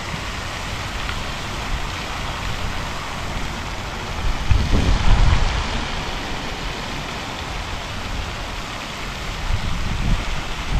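Steady outdoor hiss, with gusts of wind rumbling on the camera's microphone about four to five seconds in and again near the end.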